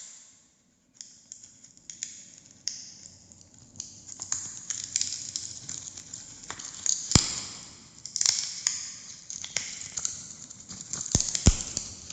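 Freeze sound effect of ice forming and cracking: a run of sharp crackles and cracks. It starts with one crack and a short pause, then the cracks come sparsely and grow thicker. Two loud, sharp cracks stand out, about seven seconds in and near the end.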